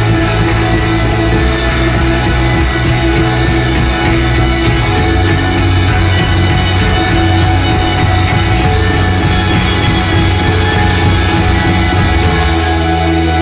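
Background music with a steady beat and sustained chords; the bass moves to a new chord about five seconds in.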